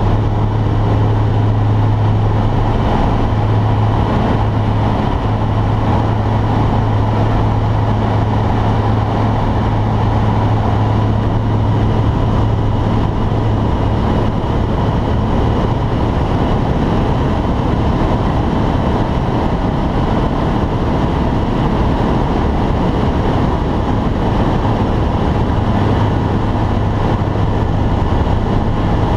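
Light aircraft's propeller engine droning steadily under power, heard inside the cockpit as the plane climbs away from the grass airfield.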